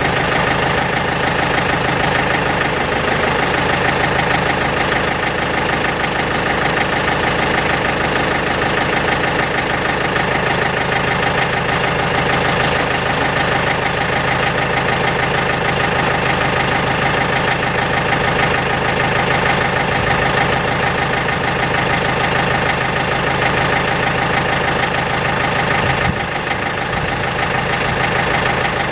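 Engine running steadily at idle.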